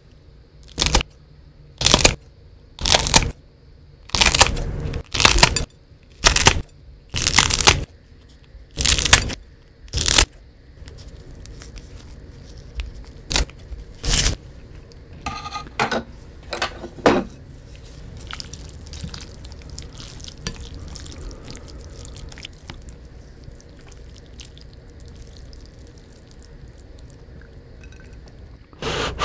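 Kitchen scissors snipping through fresh green chili peppers: about ten crisp, loud cuts, roughly one a second, over the first ten seconds, then a few fainter snips. After that there is only a low, faint background.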